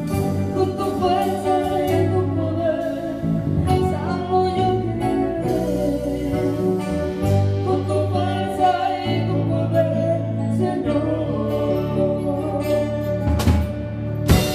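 Live worship band: a woman singing into a microphone over acoustic guitar, bass guitar and drum kit, with a loud drum hit near the end.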